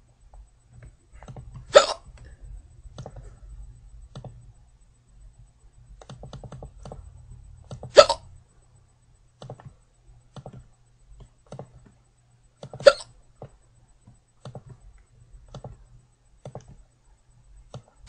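A girl hiccuping, four sharp hiccups about five seconds apart, the last right at the end. Faint clicking runs in between.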